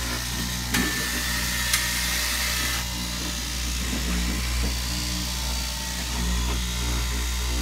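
Electric straight-knife cloth cutting machine running, its upright reciprocating blade cutting through a stack of fabric layers with a steady motor hum. Two sharp ticks come about one and two seconds in.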